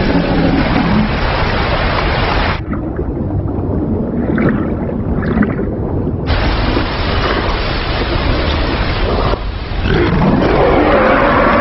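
Film soundtrack: a waterfall rushing loudly with a dinosaur's roar. About two and a half seconds in, it turns to muffled underwater sound with bubbles for a few seconds, then the loud rush of the falls returns.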